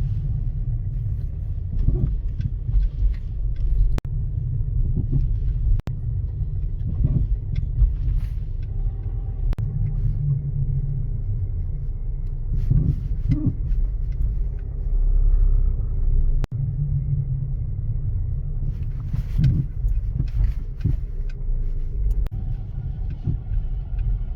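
Low rumble of an Opel Mokka X on the move, broken by irregular knocks and clunks every second or few. The clunks come from a faulty front right shock absorber.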